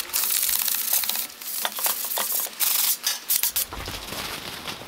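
Hand rubbing or sanding on a welded steel frame: irregular scratchy strokes with short gaps, stopping about three and a half seconds in.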